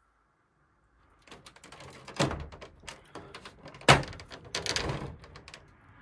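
Plastic front panel of a Panasonic CS-22NFB wall-mounted air conditioner being handled and lifted open. Starting about a second in there is a run of clicks and rattles, with two sharp knocks about two and four seconds in and a cluster of knocks near the end.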